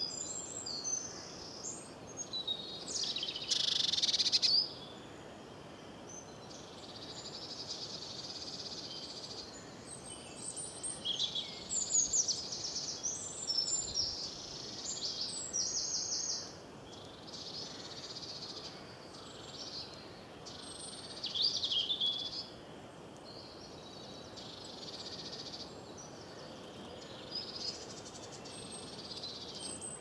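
Songbirds singing: a varied run of high chirping phrases, quick trills and short gliding notes, broken by brief pauses, over a faint steady hiss.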